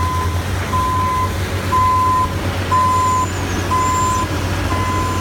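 A heavy vehicle's reversing alarm beeping steadily, one half-second beep about every second, over the low, steady rumble of its diesel engine.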